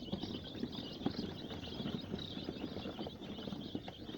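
A brood of young layer chicks peeping continuously, many high peeps overlapping, with scattered small taps and rustles as they move about.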